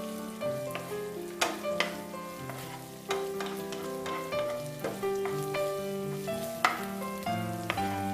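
Onions and green chillies frying in hot oil, sizzling, while a spatula stirs them, scraping and knocking against the pan now and then. Background music with a stepping melody plays over it.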